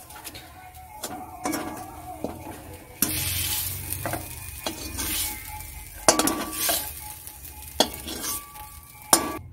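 Metal spatula scraping and knocking against a metal wok as the last of the stir-fried water spinach is scraped out, with a light sizzle from the hot pan. Sharp clinks come several times, loudest about six seconds in and near the end.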